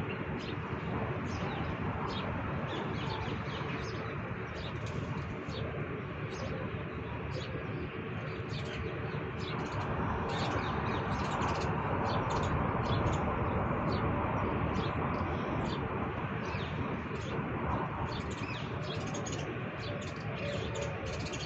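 Pigeons cooing amid many quick, short chirps of small birds, over a steady background hiss.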